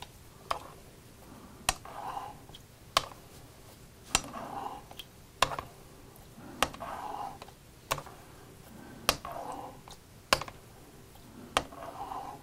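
A straight razor being stroked with very light pressure across a wet Naniwa Superstone 12K finishing water stone to refresh its edge. About ten even strokes, each a short swish with a sharp click as the blade is turned over on its spine.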